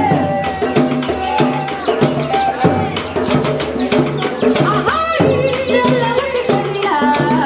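Live song: women singing to a shaker keeping a steady rhythm, with a drum and a repeating low note underneath.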